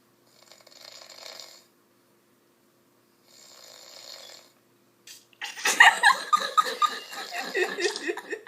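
A man snoring: two soft, breathy snores, then a much louder, long snore with a fast flutter starting a little past halfway.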